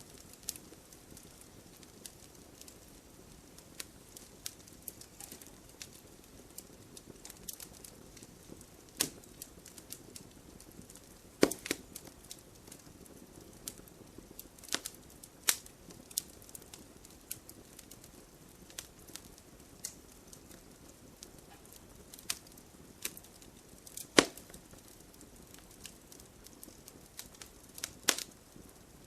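Burning firewood crackling, with scattered sharp pops and snaps over a low steady hiss of the fire; the loudest pops come about a third of the way in and again past the middle.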